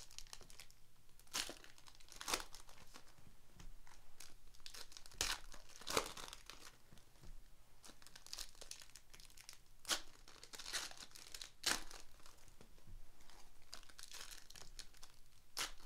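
Foil trading-card pack wrappers being torn open and crinkled by hand: irregular sharp crackles and rustling, with a handful of louder rips.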